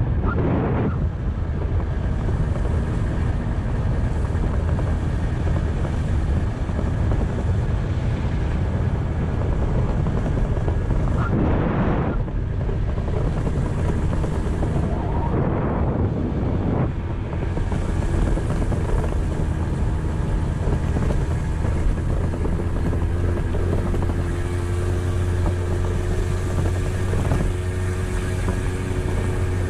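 Kymco two-wheeler under way: a steady low engine drone with wind rushing over the microphone, the rush swelling a few times.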